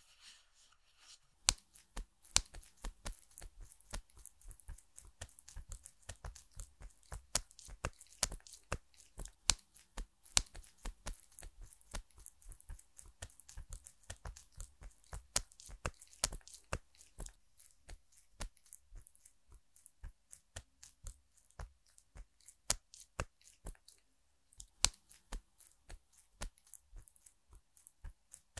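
Cotton pads pressed and rubbed against a vinyl mannequin face, making a dense, irregular crackle of small sharp clicks that starts about a second and a half in.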